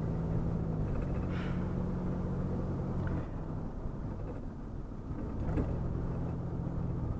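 Car engine and road noise while driving: a steady low hum that eases off about three seconds in and picks up again about five and a half seconds in.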